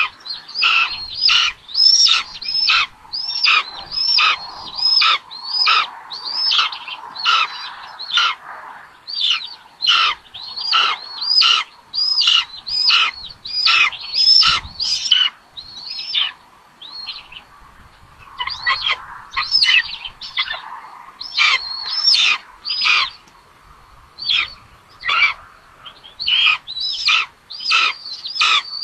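Raptor nestlings in the nest giving food-begging calls while an adult feeds them: a long series of high, arched calls, about two a second, broken by a few short pauses.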